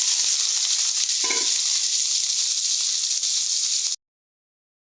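Chopped onions sizzling steadily in hot oil in a pan. The sizzle cuts off abruptly about four seconds in.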